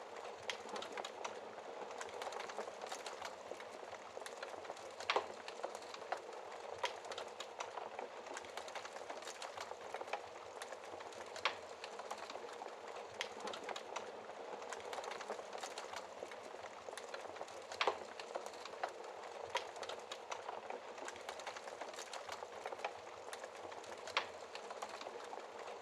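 Fireplace fire crackling: a steady hiss of burning with irregular sharp pops, a few of them louder than the rest.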